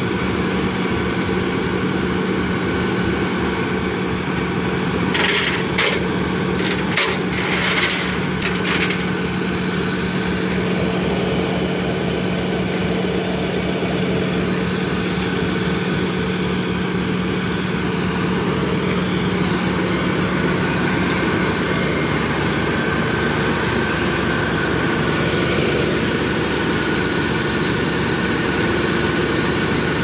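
Heavy diesel engine idling steadily with an even low throb, with a few sharp knocks and clatters about five to nine seconds in.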